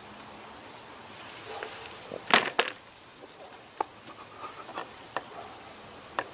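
Handling noise from the camera and air gun. A quick cluster of sharp clicks and knocks comes about two and a half seconds in, then a few scattered single clicks. A faint, steady, high-pitched whine runs underneath.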